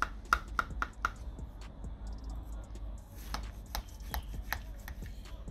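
A slotted spatula cutting down through baked crumble topping, its edge tapping against the ceramic baking dish: a quick run of taps in the first second, then a few more between about three and four and a half seconds in.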